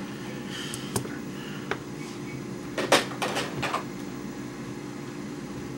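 A few light clicks and taps from small tools and phone parts being handled on a work surface, the loudest cluster about three seconds in, over a steady low hum.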